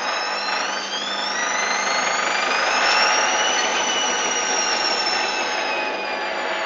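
Hoover Dynamic A59 washing machine's motor whining as the drum spins up. The whine rises in pitch for about three seconds, then eases slightly downward, over a steady rushing noise from the drum.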